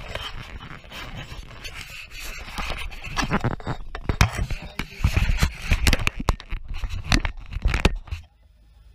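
Camera handling noise: hands and fabric rubbing and scraping over the microphone, with heavy knocks and thuds that get louder about three seconds in. It cuts off abruptly near the end as the camera is set down.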